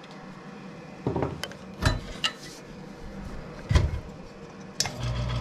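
Metal handling knocks and clinks as a screwdriver and the sheet-metal heat shield are worked onto a rotary rock tumbler's metal frame: several separate clacks, the loudest a little before the end. A low steady hum comes in at the very end.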